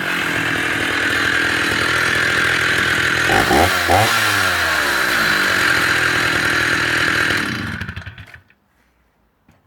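Stihl 045 AV 75cc two-stroke chainsaw running steadily out of the cut, with two quick throttle blips about three and a half seconds in, then the engine dies away about eight seconds in as it is shut off.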